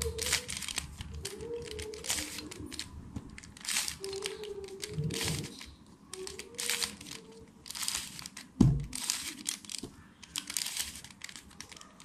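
Plastic layers of a stickerless 3x3 Rubik's cube being turned by hand, a run of quick rattling clicks in short bursts, with one heavier thump about eight and a half seconds in.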